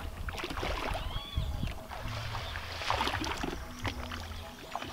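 Water sloshing and splashing irregularly as people wade through a shallow pond, dragging a seine net through the water.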